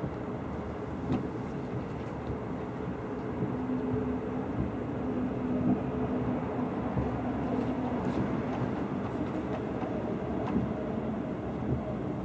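Distant fireworks display: a continuous low rumble of echoing aerial shell bursts, with a few sharper bangs standing out, the loudest about halfway through.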